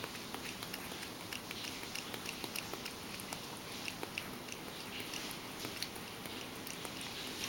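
Ragdoll cat lapping goat's milk from a stainless steel bowl: a steady run of small ticks from its tongue, about three a second.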